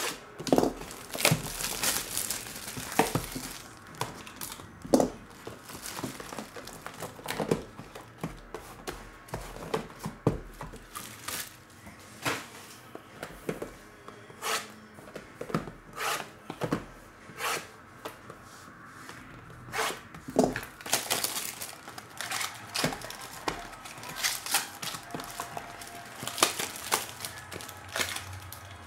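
Cellophane shrink-wrap on a sealed trading-card hobby box being torn and peeled off by hand, giving irregular crinkling crackles and sharp snaps, with the cardboard box flaps handled as it is opened.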